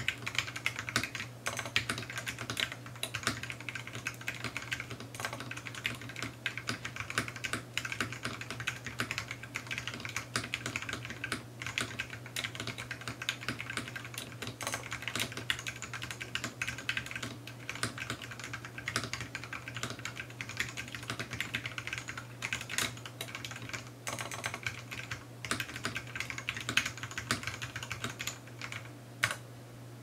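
Fast, continuous typing on a wooden-cased TADA68 mechanical keyboard with lubed Gateron Ink Black linear switches on a steel plate, a dense run of key strokes, picked up by the camera's own microphone.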